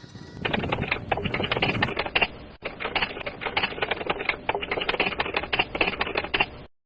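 Rapid, irregular clicking like keys being struck on a typewriter, with a brief break about a third of the way through. It cuts off abruptly near the end.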